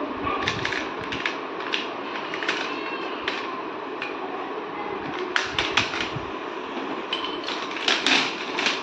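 Plastic clicks and clatter of a rotating spice rack and its jars being handled and fitted together, irregular, with quick clusters of clicks about five seconds in and near the end, over a steady background hiss.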